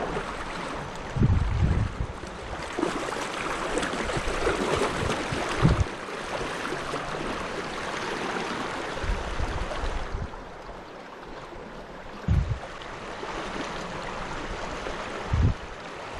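River water flowing, a steady rushing hiss, with several short low thumps of wind or handling buffeting the microphone.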